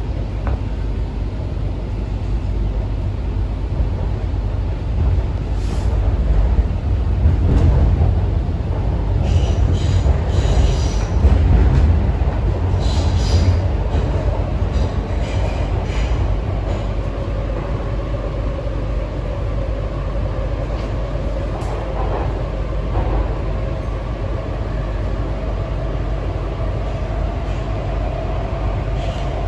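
Cabin sound of an MTR Kwun Tong Line C-train running: a steady low rumble of wheels on rail. It grows louder for several seconds with short high wheel squeals about a third of the way in, then settles under a faint, slowly rising motor whine.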